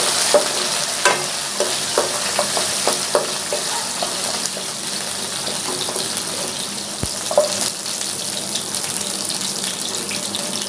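Bitter gourd slices frying in hot mustard oil in a non-stick kadai, a steady sizzle, with a spatula clicking and scraping against the pan as they are turned, most often in the first few seconds.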